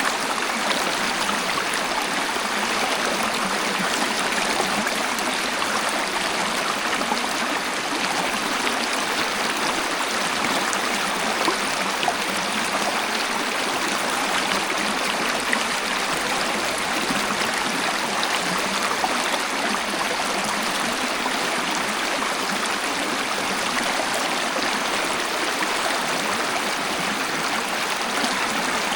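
Waterfall: water pouring and splashing in a steady, even rush, mostly mid and high in pitch without a deep rumble.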